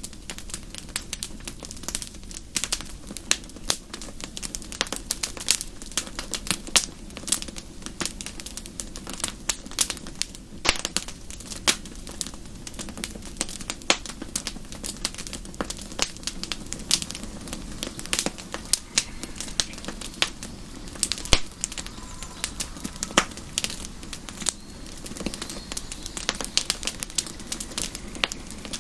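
Wood campfire crackling, with dense, irregular sharp pops and snaps throughout over a steady low rush of burning.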